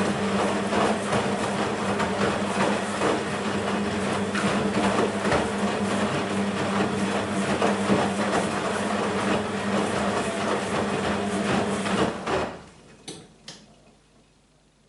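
BEKO WMB 51441 washing machine spinning, with a steady hum and a dense rattle. About twelve seconds in the motor noise falls away quickly, and two short clicks follow.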